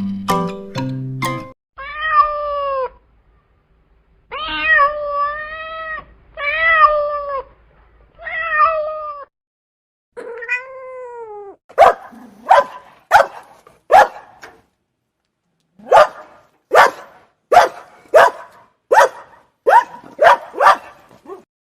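A short mallet-chime jingle ends, then a domestic cat meows five times in long drawn-out calls. This is followed by a rapid series of about a dozen short, sharp animal calls.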